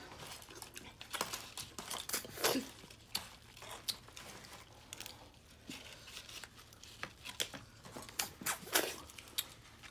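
Eating sounds at the table: irregular cracks, crinkles and wet mouth noises as shellfish are picked apart and eaten, with two louder bursts about two and a half seconds in and near the end.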